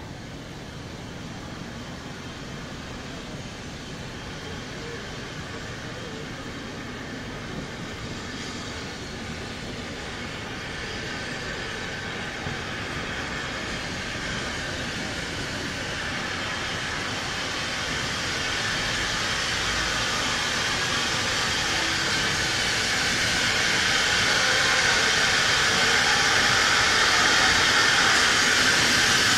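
LNWR Webb Coal Tank 0-6-2T steam locomotive approaching with its train of coaches, growing steadily louder as it draws near, with a hiss of steam.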